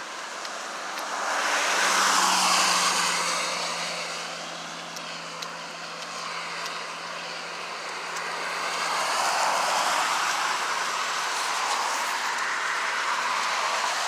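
Cars passing on a wet road, tyre hiss swelling and fading as each goes by: one about two seconds in, another around ten seconds in.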